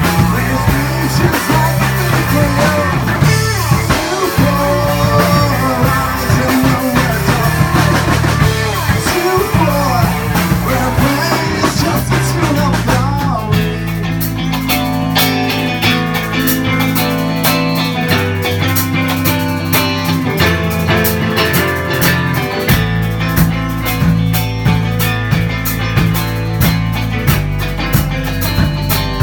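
Live rock band playing: electric guitar, bass guitar and drum kit. About halfway through the music shifts into a denser section driven by fast, even cymbal strikes.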